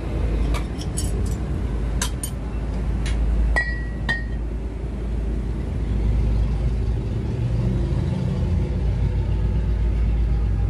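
Heavy steel truck parts clinking together about seven times in the first four seconds, one strike ringing briefly, over a steady low rumble like a vehicle engine running.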